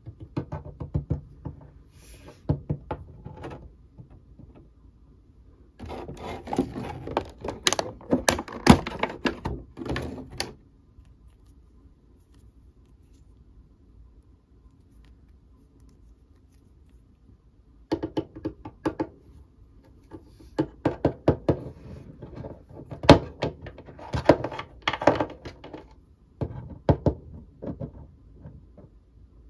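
Small plastic toy figures and a clear plastic blister tray being handled and set down on a tabletop: bursts of clicks, taps and knocks, with a quiet pause of several seconds in the middle.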